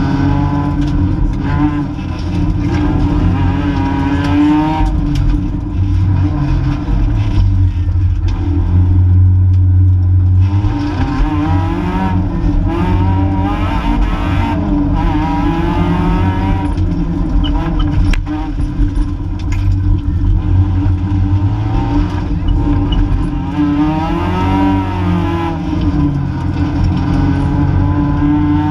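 Rally car engine heard from inside the cabin, revving up and falling back again and again as the car accelerates and changes gear, over a steady hum. A single sharp knock comes about two-thirds of the way through.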